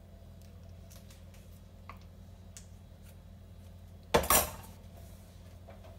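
Two quick clattering knocks of kitchenware a little after four seconds in, over a low steady hum.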